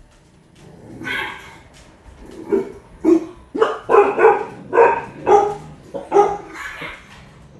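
Cane Corso barking repeatedly: a run of about nine separate barks, coming faster in the middle.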